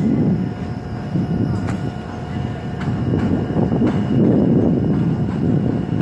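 New York subway N train arriving on the elevated track: a rumble of wheels on rails that grows louder about halfway through and stays loud, with a few sharp clacks and a faint steady whine.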